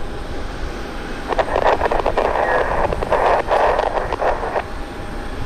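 Air-traffic-control radio chatter from a scanner, tinny and unintelligible, starting about a second in and stopping near the end, over a steady low rumble of wind on the microphone.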